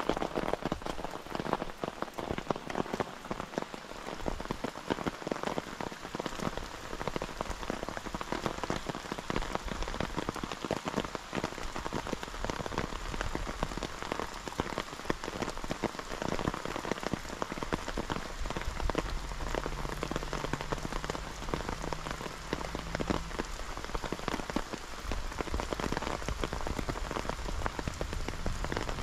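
Steady rain falling, with a dense, continuous patter of drops striking surfaces close by.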